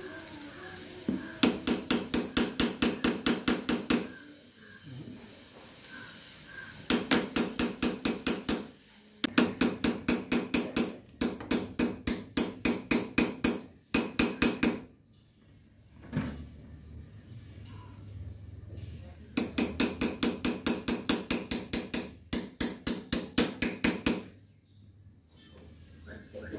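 Quick, ringing metal-on-metal taps on a motorcycle footpeg and its bracket, about five a second, in about seven runs of two to three seconds with short pauses between them: hammering to shape the aftermarket peg's mount so it fits.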